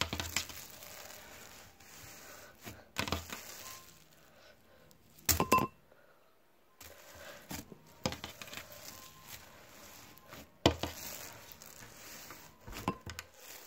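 Homemade glue slime being squished and pulled by hand: irregular crackles and sticky pops, with a few sharper, louder pops about five seconds in and again near eleven seconds.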